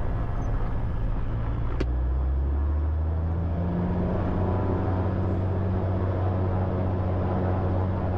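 Beechcraft Bonanza propeller engines running on the runway, a steady low drone whose pitch rises a little about two to three seconds in as the power comes up. A single click sounds near two seconds in.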